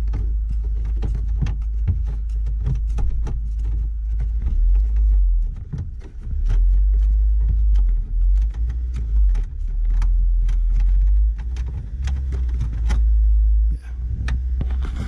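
Low, gusting rumble of wind on the microphone, over irregular small clicks and scrapes as the large plastic finger nut holding a VW Polo's rear light cluster is unscrewed by hand.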